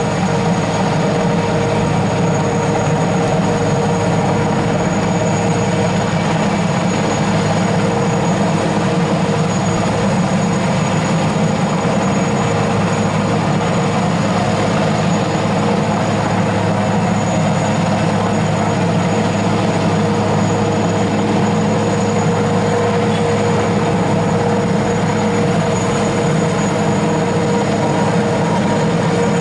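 Hovering rescue helicopter's rotor and engines running steadily and loudly overhead during a winch hoist, with no letup.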